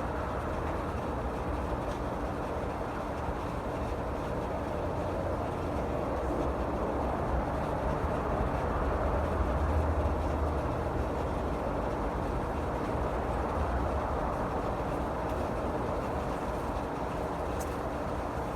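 5-ton Rheem central air conditioner outdoor condenser unit running steadily, a low hum under the rush of its fan.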